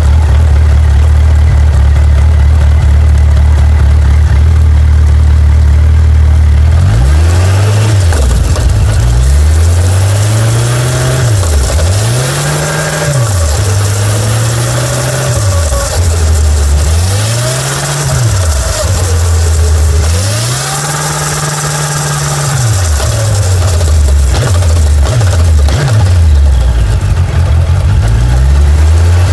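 Suzuki GSX1250FA's inline-four engine idling steadily, then revved up and down over and over from about seven seconds in, its pitch climbing and falling with each blip of the throttle.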